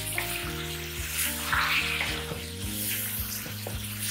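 Diced potatoes, onion and tomato sizzling in hot oil in a metal pan, stirred with a spatula that scrapes across the pan again and again. Soft background music with held notes plays under it.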